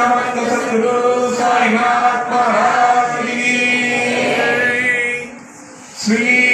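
Voices chanting a devotional aarti hymn in long, held notes, with a short break a little past five seconds in before the singing starts again.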